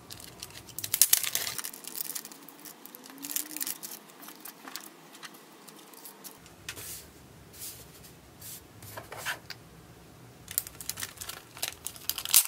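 Clear plastic packaging and stickers being handled: the bag crinkles and rustles and stickers are set down on a table, in short scattered bursts with quiet gaps between them.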